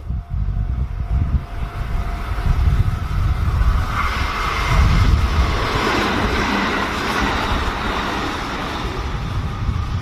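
Kintetsu limited express electric train passing close by. The rush of its wheels on the rails builds from about three seconds in, is loudest around the middle and eases off near the end.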